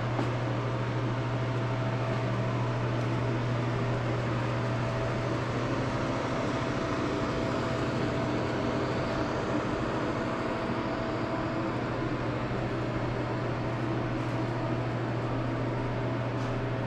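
Steady mechanical hum with an even rush of air noise.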